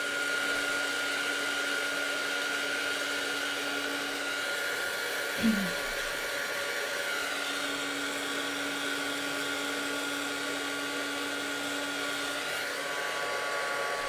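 Handheld embossing heat gun running, a steady fan blowing with a motor hum, as it melts embossing powder. One brief falling sound about five and a half seconds in.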